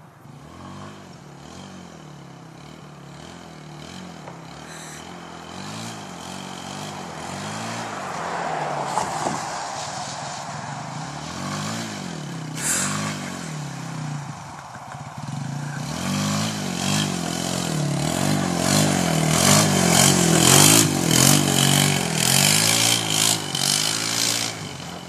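Small E-ton automatic four-stroke ATV engine revving up and down over and over, each rev rising and falling in pitch about every second and a half, growing steadily louder as the quad approaches.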